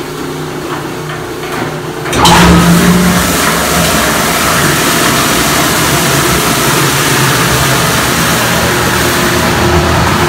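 Somat food-waste pulper switched on about two seconds in: a sudden start, then a steady loud rush of motor and water as the machine runs.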